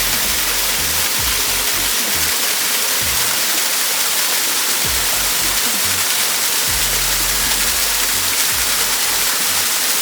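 Waterfall crashing into its pool: a steady, loud rush of falling water. Soft low music plays underneath.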